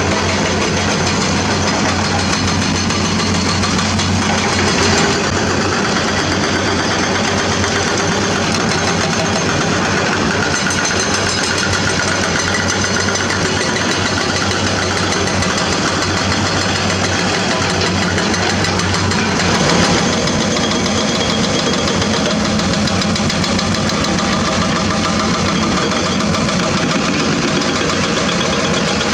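Diesel engines of crawler excavators running steadily as they work, the sound shifting in character about a third and about two thirds of the way through.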